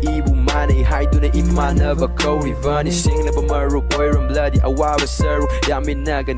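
Hip-hop-style soundtrack music with deep bass, a steady beat and a vocal line.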